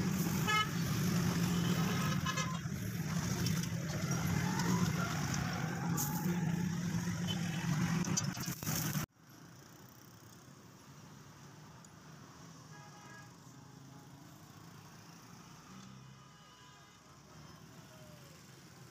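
Street traffic noise: a steady engine hum with vehicle horns sounding in the first few seconds. It cuts off abruptly about nine seconds in, leaving a much quieter background with a few faint tones.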